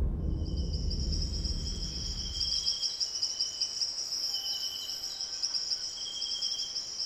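Crickets trilling in a steady high chorus, with a second, lower trill coming and going every second or so. A deep rumble dies away over the first three seconds.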